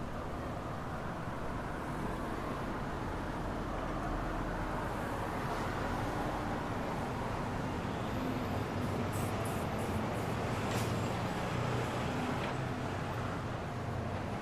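City street traffic: a steady wash of passing vehicles, with a heavier engine growing louder through the middle. A few short high-pitched ticks or squeaks come about two-thirds of the way through.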